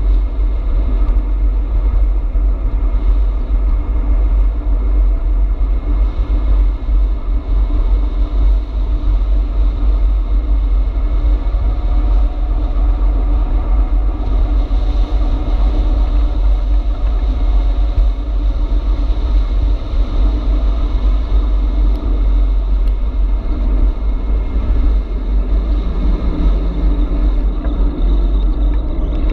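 Wind buffeting the microphone of a camera mounted on a moving e-bike: a steady, loud low rumble.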